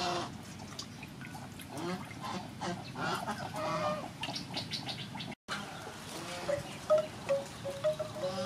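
Water splashing and dripping as raw beef is washed by hand in a steel bowl, with farm birds calling in the background and a run of short, repeated high notes in the second half.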